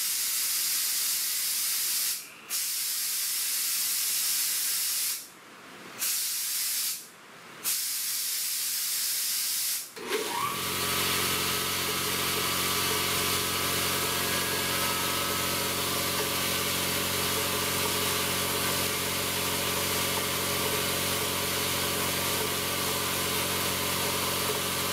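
Compressed air hissing out of a shop air line, stopping briefly a few times. About ten seconds in, a Quincy 5 HP two-stage electric air compressor kicks on and runs steadily, its pump starting to refill the tank once the pressure has been drawn down to its 125 psi cut-in.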